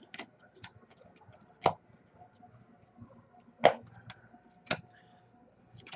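Trading cards and packs being handled: a few sharp, scattered clicks and snaps as cards are flipped and set down, the loudest about two seconds in and again near four seconds.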